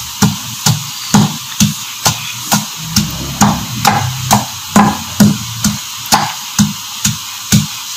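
A wooden pestle pounding dried red chillies, garlic, ginger and salt in a mortar, in an even rhythm of about two knocks a second, crushing them into a spice paste.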